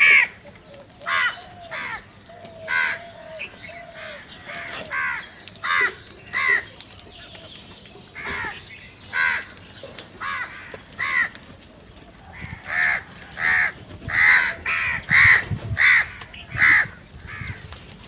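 House crows cawing: a run of short, harsh calls one after another from several birds, coming faster and louder in the second half.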